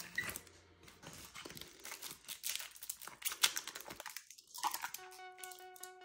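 Packaging being handled, a dense irregular run of rustles and clicks. Music with held notes comes in near the end.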